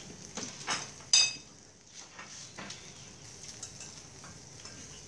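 Metal tongs clicking and clinking against the wire grill grate over a charcoal fire. The sharpest clink comes about a second in and rings briefly, over a faint steady sizzle of meat grilling.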